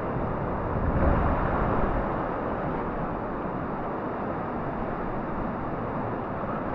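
Steady rush of fast-flowing river water, with a brief louder swell about a second in.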